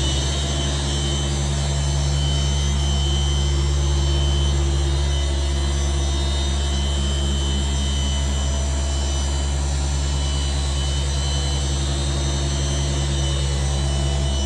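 Rupes LHR21 random-orbital machine polisher running steadily at speed with a constant motor hum, cutting the paint with compound on a pad.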